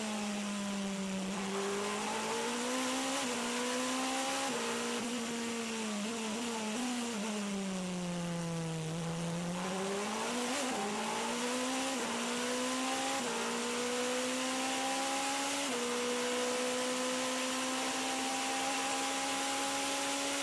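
Onboard sound of the Toyota TS 040 Hybrid LMP1 prototype's 3.7-litre V8 at speed, heard from inside the car over steady wind and road hiss. The engine note sinks slowly to a low point about nine seconds in, climbs back, then steps higher in a few sudden jumps.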